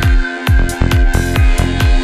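Electronic dance music: a deep kick drum on every beat, about two a second, with hi-hats between the kicks and sustained synth chords above.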